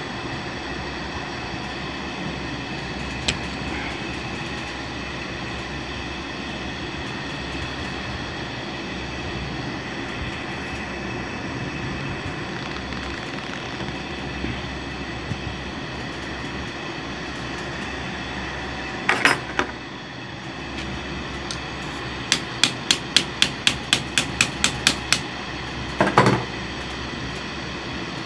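Sharp metal taps and knocks from hands-on work at the pulley of a Juki LBH-781 buttonhole sewing machine: a loud knock, then a run of about a dozen even taps, about four a second, and another loud knock near the end. A steady mechanical hum runs underneath.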